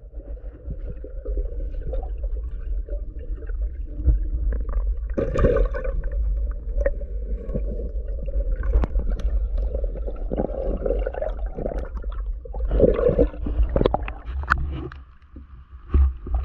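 Muffled underwater sound picked up through a waterproof camera housing: a steady low rumble and water noise, with scattered knocks and clicks as the diver swims and handles the spear gun. Near the end the camera comes up out of the water with a brief loud splash.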